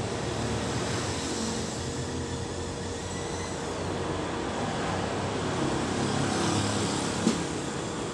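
Steady background noise with no speech, and one short sharp click about seven seconds in.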